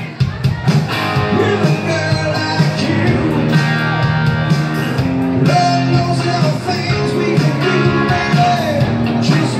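Live rock music from a guitar duo: an electric guitar and an acoustic-electric guitar played together, with a man singing lead into a microphone.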